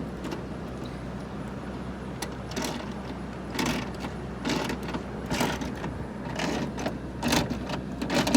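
Hand tools and small metal door parts being worked, a short rattling stroke about once a second, over a steady low hum.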